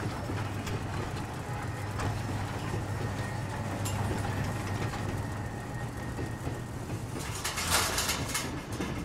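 Street ambience: a steady low hum with scattered faint ticks. A loud hissing rush lasts about a second near the end.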